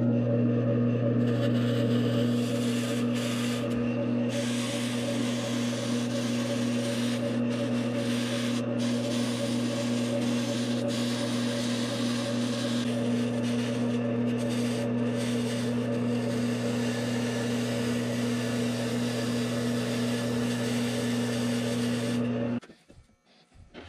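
Grizzly variable-speed wood lathe turning at around 540 rpm with a steady motor hum, while a hand-held turning tool scrapes and shaves a rigid foam blank with a continuous hiss. Both cut off suddenly near the end.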